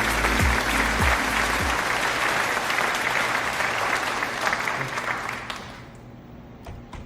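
Background music with a steady beat that stops about two seconds in, overlapped and followed by applause that fades out near the end.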